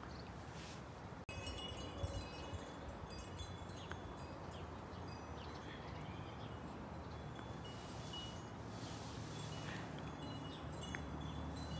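Quiet outdoor ambience with scattered high, ringing chime-like tones.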